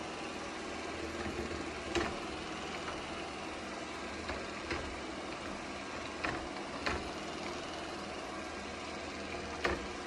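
Shark IQ Robot RV1001 robot vacuum running: a steady whir of its suction motor and brush roll, with several sharp clicks.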